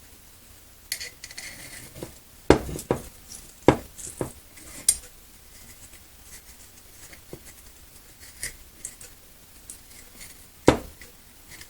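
Hands picking and pulling at masking tape stuck to a sewing machine: scattered light clicks and taps with a few sharper knocks, one of them near the end.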